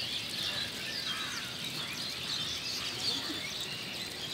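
Many small birds chirping at once, a dense, steady chorus of short high calls over a faint outdoor hiss.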